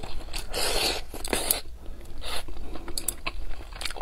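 A person eating braised fish close to the microphone: chewing and mouth sounds in short, irregular bursts, with a few small clicks.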